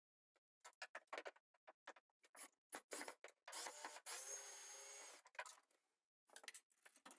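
Faint clicks and scraping from hands and tools working on a range hood and its wiring, with a steadier whirring stretch of about a second and a half about four seconds in.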